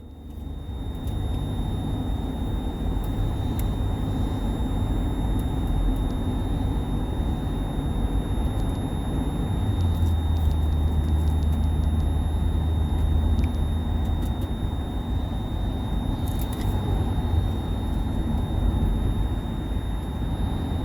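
A van's cabin while it drives: low road and engine rumble with a steady high-pitched whine running over it.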